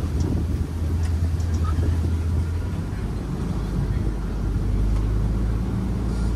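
Safari ride truck's engine running as it drives along, a steady low drone that shifts lower about halfway through.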